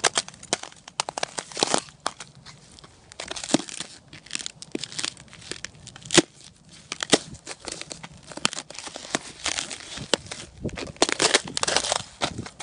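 Crusted ice and snow crunching and cracking under shoes as they press and grind into it: an irregular run of sharp crackling crunches, thickest near the end.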